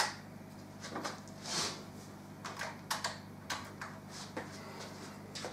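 Handling noises: a sharp click at the start, then a brief rustle about a second and a half in and scattered light clicks and knocks, over a faint steady hum.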